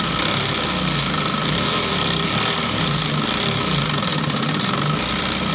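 8500B-model industrial lockstitch sewing machine running steadily, stitching through fabric, with its hook timing freshly reset.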